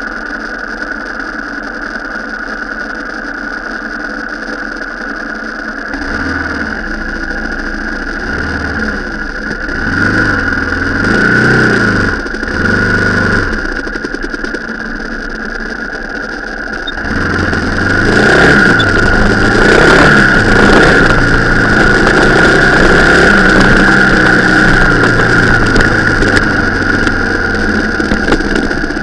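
Car engine revving up and down several times from about six seconds in, then pulling louder and steadier through the second half, over a steady high-pitched whine.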